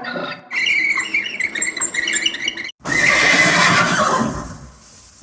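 Recorded horse whinnying: a quavering, high-pitched neigh, followed by a noisier breathy blow.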